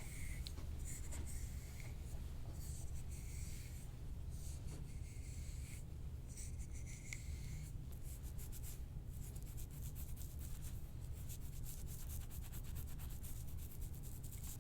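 Close, scratchy rubbing of hands massaging the neck and head, in quick strokes that come thicker in the second half, over a steady low hum.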